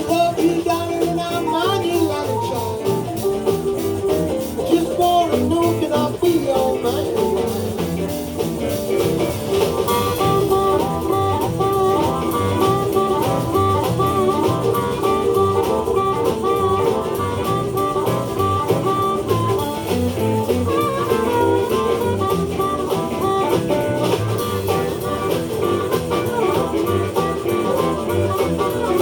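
Live blues band playing an instrumental passage, with lead lines over guitar, bass and drums.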